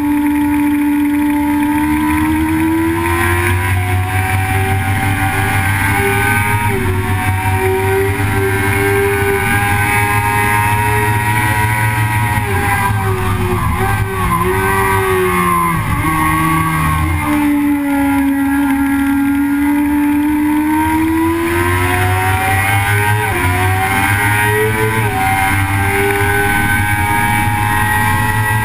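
Vehicle engine running hard at track speed, its pitch rising and falling with the throttle. In the middle the pitch dips and wavers unevenly for a few seconds, then drops low before climbing again.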